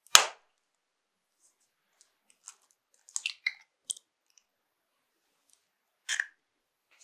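Raw eggs being cracked and added to a glass bowl of flour: a sharp eggshell crack just after the start, small crackles of shell being pulled apart with wet drips around three to four seconds in, and another short crackle at about six seconds.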